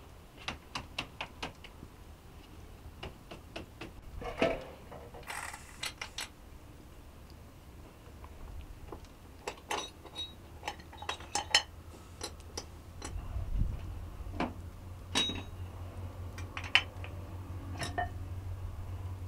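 Kitchen utensils and pots clinking and knocking: irregular sharp metallic clicks, some ringing briefly, with a short scrape about five seconds in.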